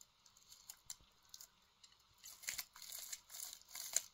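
Wire whisk twisted inside a halved orange, grinding into the pulp to squeeze out juice: a few faint clicks at first, then, from about two seconds in, a run of crackling, rasping strokes.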